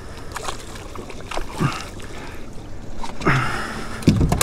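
Water splashing as a gaffed spotted mackerel is hauled out beside the boat. Near the end come a few sharp knocks as the fish and gaff hit the deck.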